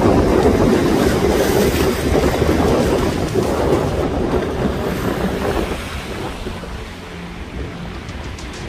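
Strong wind buffeting the microphone: a loud, steady rushing rumble that eases off about six seconds in.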